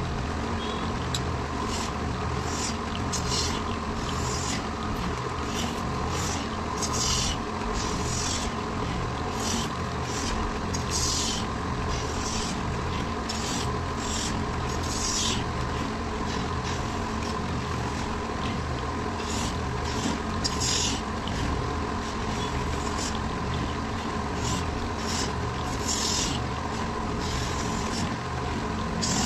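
Wood lathe running with a steady motor hum while a tool scrapes the spinning wood in short, irregular strokes, about one a second.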